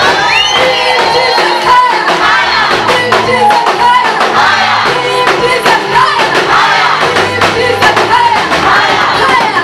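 Live gospel praise music with a congregation or choir singing over instruments and a steady beat.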